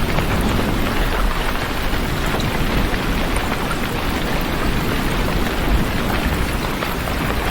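Heavy rain falling steadily, an even hiss of drops with a low rumble underneath.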